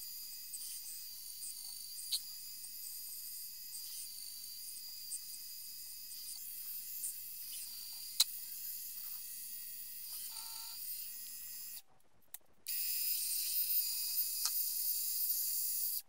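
Metal lathe turning a stainless steel bar, the cutting tool taking a cut: a steady high-pitched whine and hiss with scattered small ticks. The sound drops out for under a second about twelve seconds in, then comes back louder.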